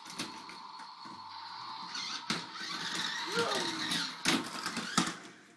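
Small electric motor of a battery-powered toy car whirring steadily as it runs around a plastic loop track, with several sharp plastic clicks and clacks; the whine fades out near the end. A brief child's vocal sound comes about halfway through.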